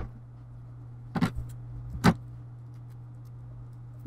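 Two short, sharp clicks about a second apart over a steady low electrical hum.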